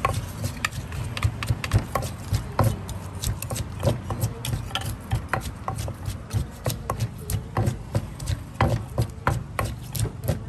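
Irregular clicks and knocks of food being prepared by hand, several a second, from utensils striking and working the food, over a steady low hum.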